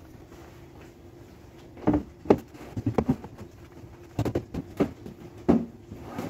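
Plastic food storage canisters being set down and pushed into place in a pull-out kitchen drawer: a series of sharp knocks in clusters, starting about two seconds in, over a faint steady hum.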